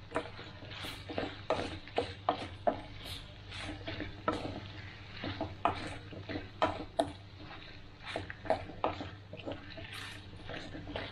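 Wooden spatula stirring and scraping chicken in an aluminium pan, with irregular knocks and scrapes against the pan over a light sizzle. The chicken is frying in its own released oil now that the cooking water has boiled away.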